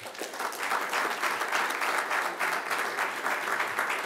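Audience applauding: many hands clapping together, building up within the first second and then holding steady.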